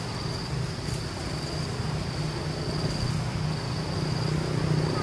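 Insect chorus droning steadily on one high, unbroken pitch, over a low, steady rumble.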